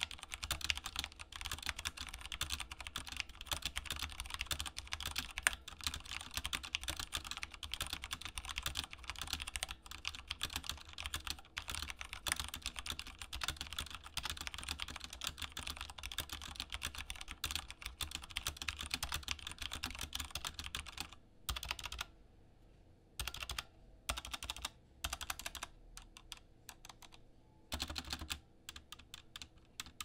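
i-Rocks K65M mechanical keyboard with tactile Cherry MX Brown switches and doubleshot PBT keycaps being typed on: a fast, steady run of keystroke clacks that breaks up about two-thirds of the way in into scattered single presses and short bursts with quiet gaps between.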